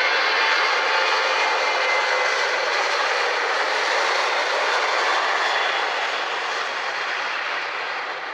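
Jet airliner's engine noise, a loud steady rush with faint whining tones near the start, slowly fading as the aircraft moves away.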